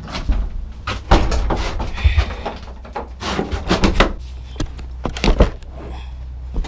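Clunks and rattles of a portable toilet's plastic door and its latch being worked from inside the small plastic cabin, several sharp knocks over a few seconds.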